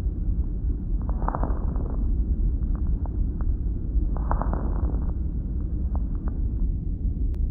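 Recorded lung sounds heard through a stethoscope: a steady low rumble with a breath swelling about every three seconds, and short scattered clicks between the breaths.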